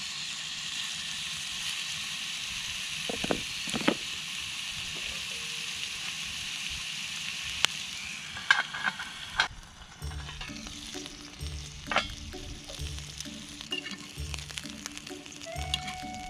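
Steak sizzling in a small cast-iron skillet over a campfire, with a few sharp clicks and knocks from metal on the pan. About two-thirds of the way in, the sizzle fades and background music with held notes takes over.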